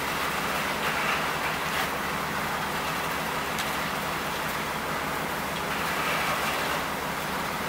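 A steady engine rumble under a continuous hiss, the sound of equipment running and water spraying while a building fire is fought with hoses.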